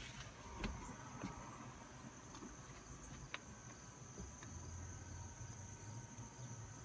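Faint outdoor background: a steady high-pitched insect hum with soft, evenly spaced chirps, under a few light clicks and a low rumble of handling noise.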